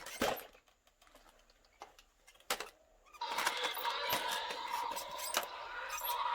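Scattered sharp clicks and knocks, typical of hard plastic toy dinosaurs being knocked together in play, over a steady hiss that drops out about half a second in and comes back after about three seconds.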